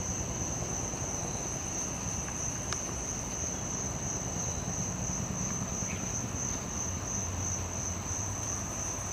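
Insects trilling in a continuous, high-pitched chorus with a slight pulsing, over a low, steady rumble.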